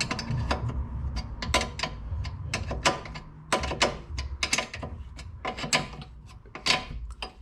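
Socket ratchet clicking in quick, uneven runs as the 13 mm-headed nuts of the rear brake caliper carrier are tightened.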